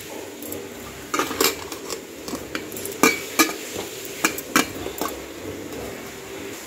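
Metal cooking pot and lid clinking and knocking, several sharp knocks scattered over a few seconds, as the lid is sealed onto the pot with kneaded dough for dum cooking.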